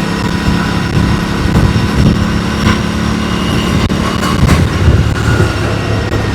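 Aprilia Tuono 457's 457 cc parallel-twin engine running while riding, with heavy wind rush over it; the engine's note drops lower about halfway through.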